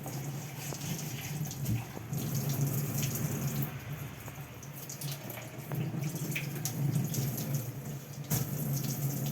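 Water running steadily, as from a kitchen tap, with a few small knocks.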